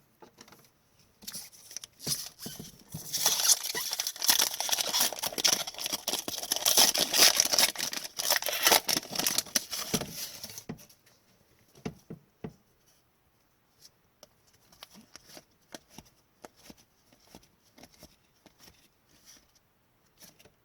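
A hockey card pack wrapper being torn open and crinkled for several seconds, followed by light scattered clicks and taps as the cards are handled.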